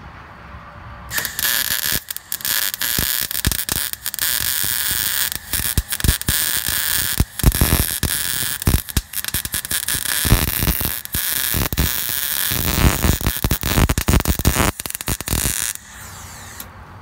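Electric arc welding on a steel bracket: the arc crackles loudly and steadily, starting about a second in, with a few short breaks as the weld is stopped and restarted, and cutting off near the end.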